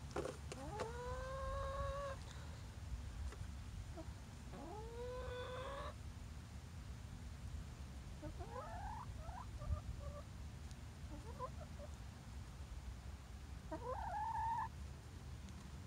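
Hens calling: two drawn-out calls that rise and then hold their pitch, followed by shorter, choppy clucks and chirps, with a louder one near the end.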